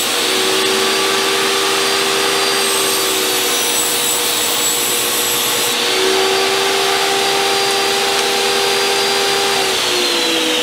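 Table saw running and ripping 3/16-inch luan plywood into strips. Near the end the motor is switched off and its whine falls in pitch as the blade spins down.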